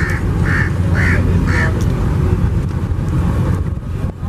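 Strong wind buffeting the microphone as a steady low rumble over choppy water. In the first two seconds a quick run of four short calls comes about two a second.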